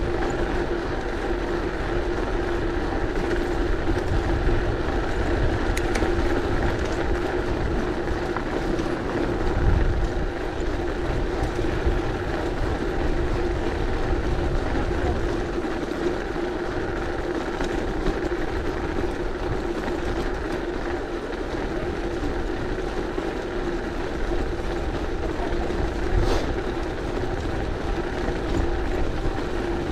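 Mountain bike rolling over cobblestones: a low road and wind rumble under a steady hum, with a single sharp click near the end.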